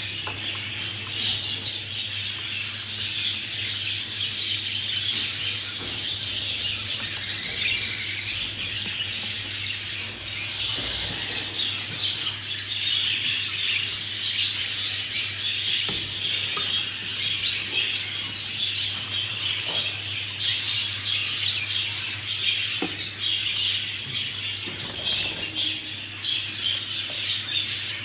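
A group of budgerigars chattering and chirping continuously, many birds calling over one another.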